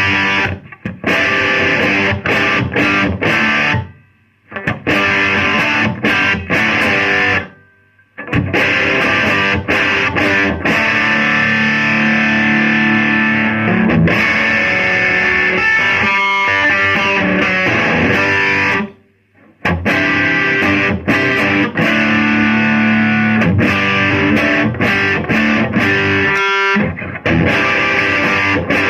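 Electric guitar played through a distorted amplifier: strummed chords and riffs with sharp rhythmic strokes, stopping dead several times.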